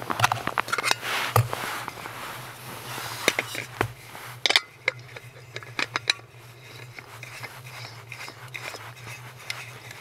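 Hands unpacking and assembling a compact canister stove: metal-on-metal clicks, knocks and scrapes as the burner and gas canister come out of the cook cup and the burner is screwed onto the canister. The sharp knocks come thickest in the first half, with softer handling after.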